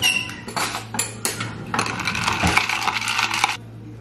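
Ice cubes and a spoon clinking in a glass mason jar of iced coffee: a few separate sharp clinks, then about two seconds of rapid continuous clinking as it is stirred, stopping abruptly.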